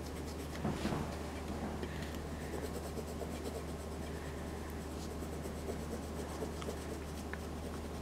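Pencil scratching on paper in short back-and-forth shading strokes, faint, over a steady low hum.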